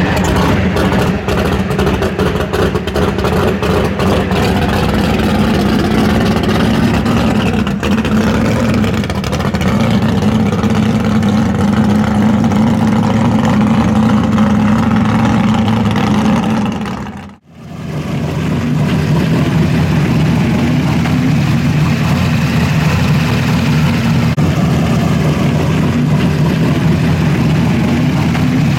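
American V8 muscle car engine running with a loud, steady exhaust note. About two-thirds of the way through it cuts out abruptly, then resumes with a lower, steady note.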